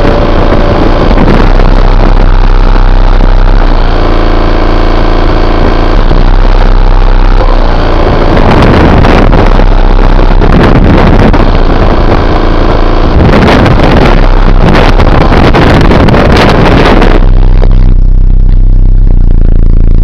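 Sundown Audio SA-12 12-inch subwoofer playing a very deep bass track, centred around 28 Hz by the owner's estimate, on about 1000 watts. It is loud enough that the sound comes through as a harsh, overloaded rumble with noise on top, and the upper noise drops away near the end.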